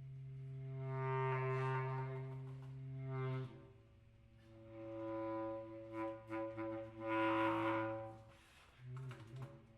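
Solo clarinet holding long, low sustained notes that swell and fade, with breathy air noise coming up at each swell; short broken notes near the end.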